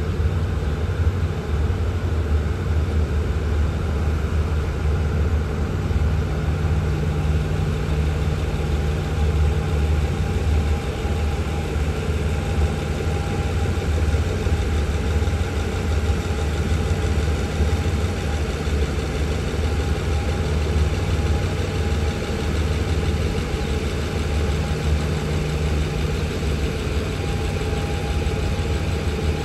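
Diesel engine of an SRT passenger train running steadily: an even low drone, with a faint higher tone that comes and goes.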